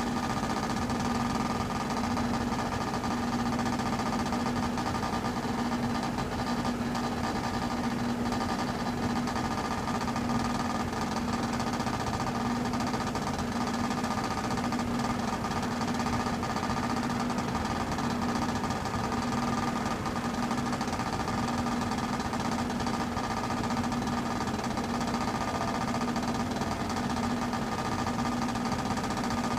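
Heat pump running with a steady mechanical drone and rattle: a low hum that pulses slightly, with several steady higher tones above it. The uploader calls the noise crazy, an unusual sound for the unit.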